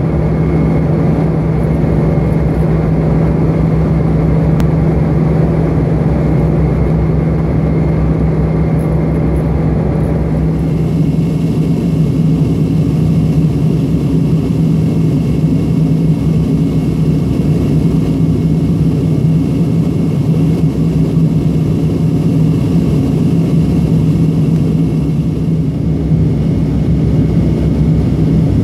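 Cabin noise of a Tupolev Tu-154M airliner in flight: a loud, steady drone of its rear-mounted D-30KU turbofan engines and airflow, with a strong low hum. About ten seconds in, the higher hiss drops slightly.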